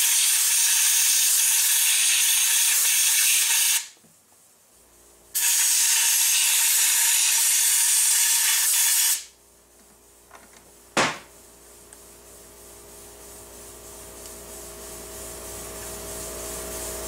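Compressed-air blow gun blowing out the upper receiver and chamber of an AR-15 to clear solvent and debris: two long hissing blasts of about four seconds each, with a short pause between. Later comes a single sharp click, then a faint hum that slowly grows louder.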